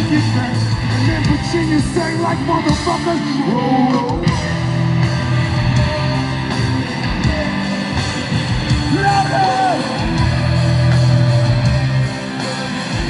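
Live rock band playing loud through a concert PA: electric guitars, bass and drums.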